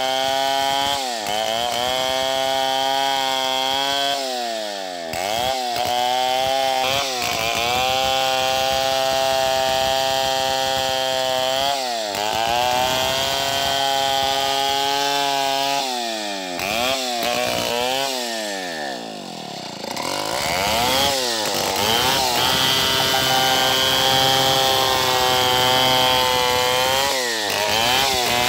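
A Stihl chainsaw ripping lengthwise along a large anonang log, held at high revs under load. Several times the revs sag and climb back, and about twenty seconds in they fall almost to idle before the saw revs up again.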